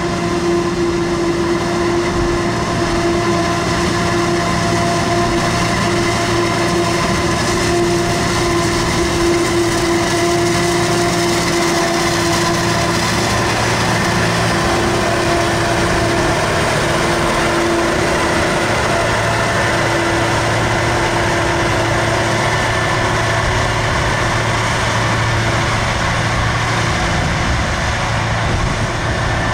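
New Holland FR920 forage harvester running steadily while chopping maize: a constant machine drone with a steady whine that does not change.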